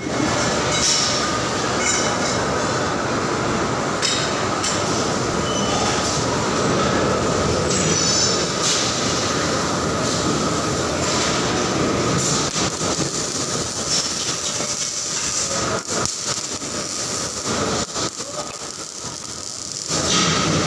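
Factory machinery running with a steady hum and a thin high tone, with scattered sharp metal knocks. Near the end it grows louder as arc welding starts on a seat-frame welding jig, throwing sparks.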